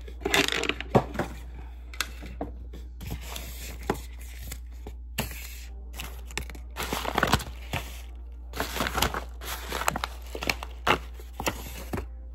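Paper and a plastic bag rustling and crinkling in irregular bursts as they are handled and pushed aside on a wooden table, with a few light taps and knocks, over a steady low hum.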